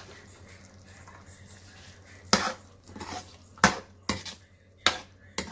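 Slotted spatula clacking and scraping against a karahi (wok) as mutton, yogurt and karahi masala are stirred together. There are about eight irregular sharp knocks, starting about two seconds in.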